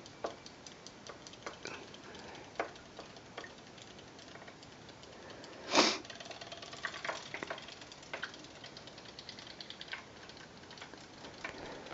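Faint, rapid mechanical ticking of battery-powered Zuru Robo Fish toys, their small motors wagging the tails as they swim in a sink of water. A single louder, brief noise comes about six seconds in.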